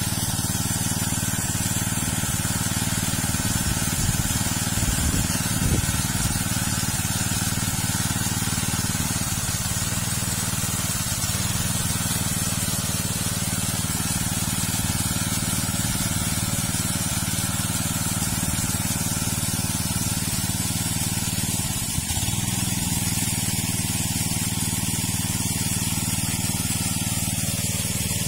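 Small engine-driven water pump running steadily at constant speed, drawing water from a pond, with the continuous hiss of its outlet jet spraying water.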